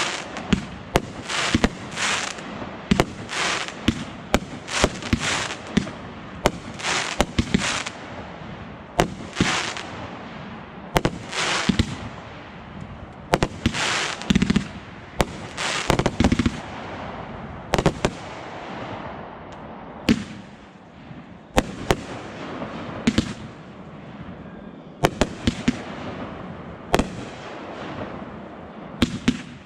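Aerial fireworks display: shells launching with short hisses and bursting with sharp bangs in quick succession, the barrage thinning out past the middle.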